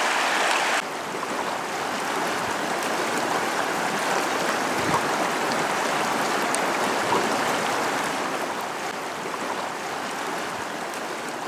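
Rushing water of a shallow mountain creek, a steady wash. It drops a little in loudness about a second in and fades out near the end.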